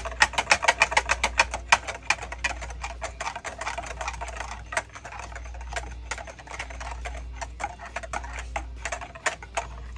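Wire whisk clicking against the sides of a bowl in a fast, even rhythm of about seven taps a second, whisking gelatine and sugar into boiling water to dissolve them. The taps are strongest in the first few seconds and lighter after.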